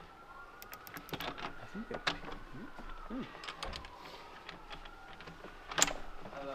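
Irregular small clicks and taps of hands and a small tool working bolts and clamps on a car's air-intake MAF adapter and duct hose, with one sharper click about six seconds in.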